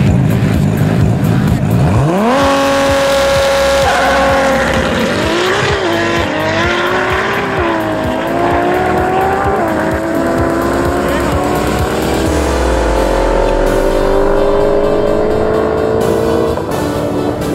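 Nissan GT-R R35's twin-turbo V6 launching hard at full throttle: the revs shoot up about two seconds in, rise and dip at each upshift, then climb slowly in a long top gear before falling away near the end. Music plays underneath.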